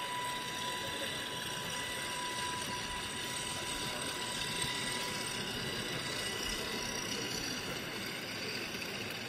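Model freight train running past on a model railway: a pair of model diesel locomotives hauling hopper wagons, with a steady running rumble. A thin high steady tone is also heard and stops about three seconds in.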